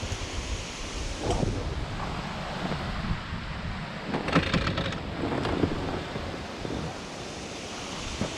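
Wind buffeting the microphone, a steady low rumble, with a few short rustles or knocks partway through.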